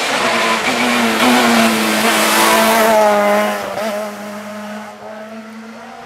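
Rally car engine at high revs as the car comes through a bend, the pitch rising and dipping with throttle and gear changes. It is loudest in the first three seconds or so, then fades after about three and a half seconds.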